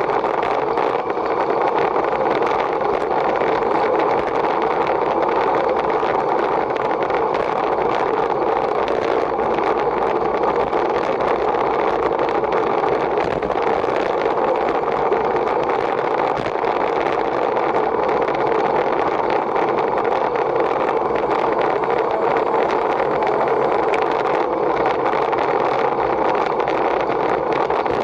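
A steady, even rushing noise that holds at one level throughout, with no distinct strikes or pitch changes.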